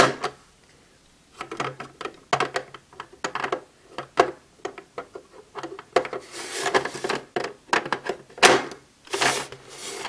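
Hard plastic toy buckles clicking, knocking and scraping as they are pressed into the slots of a plastic storage box. There is a sharp click at the very start and a run of quick clicks from about a second and a half in, then rubbing and a few more clicks near the end.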